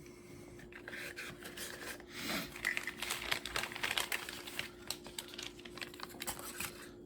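Irregular light clicks, taps and rustling of pocket knives and their cardboard packaging tubes being handled and set down on a tabletop, over a faint steady hum.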